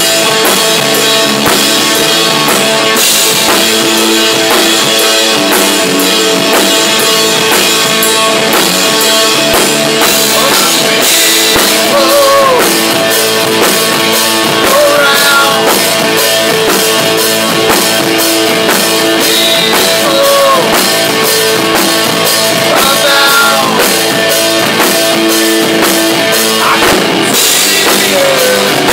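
A rock band playing live in a rehearsal room: a drum kit with fast, steady cymbal hits under electric guitars, loud and even.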